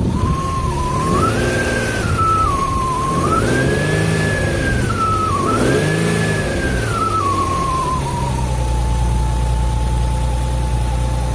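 Whistle from the clutch/transmission area of a 2013 Infiniti G37S six-speed manual, over its 3.7-litre V6. The engine is revved three times and the whistle rises and falls in pitch with the revs each time, then settles into a steady tone at idle near the end. This is a cold-engine whistle that the owner says stops when the clutch pedal is pressed and fades once the drivetrain warms up.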